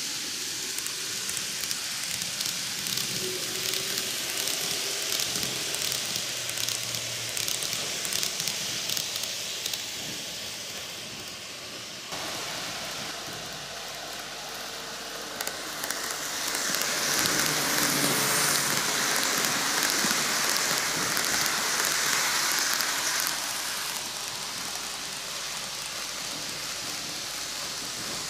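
N gauge model electric trains (KATO Tokyu 5000 series and Greenmax 2020 series) running on TOMIX plastic cant track: a steady rolling hiss of small wheels on rail with a faint motor hum. It grows louder about halfway through as a train passes close, and eases off a few seconds later.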